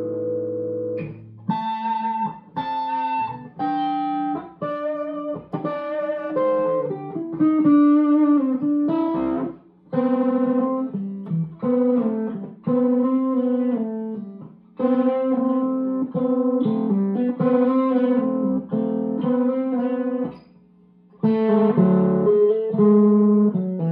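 1961 Gibson SG Special electric guitar, amplified, played on the middle pickup setting with both P-90 pickups on: a string of chords and short melodic phrases, each ringing briefly, with a short pause about ten seconds in and another a few seconds before the end.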